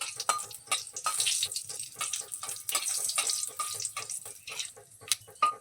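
Whole cumin seeds and broken dried red chillies sizzling and crackling in hot mustard oil in a kadai, with short repeated strokes of a spatula stirring them.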